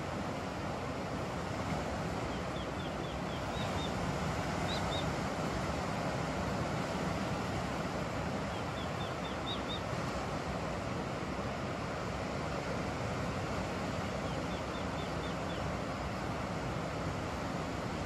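Steady rushing of wind and distant surf, with a small bird giving short runs of high chirps three times.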